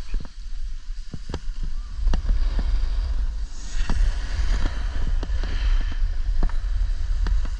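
Wind buffeting the microphone of a snowboarder riding downhill: a steady low rumble, with scattered sharp clicks and a hiss of the board on snow that swells a few seconds in.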